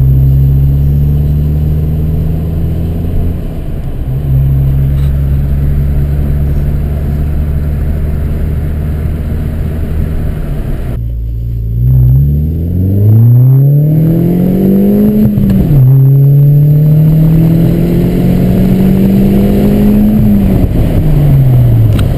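A 2003 VW GTI's 1.8-litre turbocharged four-cylinder, heard from inside the cabin through a 3-inch Tsudo turboback exhaust. It holds a steady drone for about the first half, then the revs dip and the engine pulls hard, rising in pitch. Halfway through the climb the pitch drops for an upshift, and it rises again more slowly before easing off near the end.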